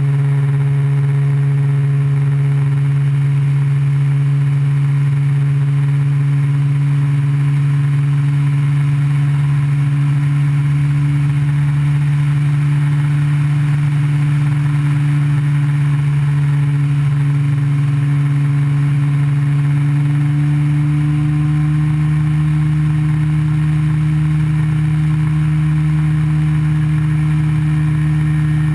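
Ultralight aircraft's engine and propeller running steadily in flight, a loud even drone with wind rumble on the microphone; the engine pitch rises slightly about two-thirds of the way through.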